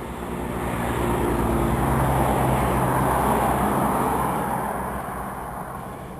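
A road vehicle passing by: engine and tyre noise swell to a peak two to three seconds in, then fade away.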